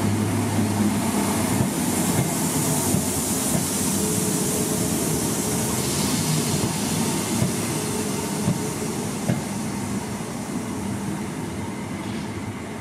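Electric multiple-unit passenger train pulling out of the platform and moving away: wheels running on the rails with a low hum over the first second or so, the noise slowly fading.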